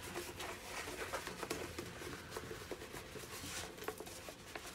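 Paper rustling and crinkling as a rolled diamond painting canvas in its paper wrapping is handled and unrolled, with scattered small clicks and taps.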